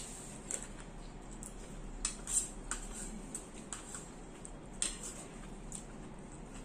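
Metal spoon and fork clinking and scraping in a stainless steel bowl while scooping up rice, with scattered sharp clinks. The loudest come in a quick cluster about two seconds in and once more near five seconds.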